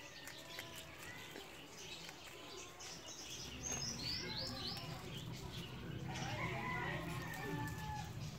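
Small birds chirping, with a quick run of four falling chirps about four seconds in and a longer whistled call later, over faint clicks of rabbits chewing cassava leaves.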